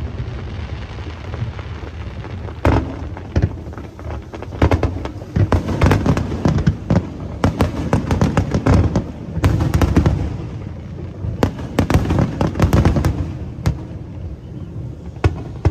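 Aerial fireworks display: rapid volleys of booms and crackling bursts over a low rumble. The volleys are densest from about three seconds in, with a few separate sharp cracks near the end.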